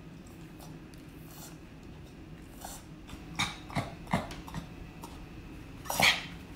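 Yorkshire terrier whimpering: three short whimpers about halfway through and a louder whine near the end.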